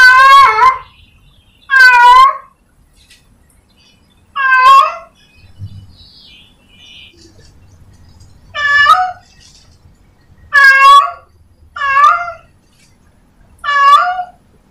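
A cat meowing: seven short, loud calls of nearly the same shape, each about half a second long, with a longer pause in the middle.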